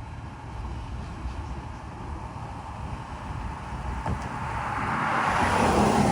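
An empty log train's wagons roll past on the track with a steady rumble. The noise swells and grows louder toward the end as a nearer, noisier part of the train passes.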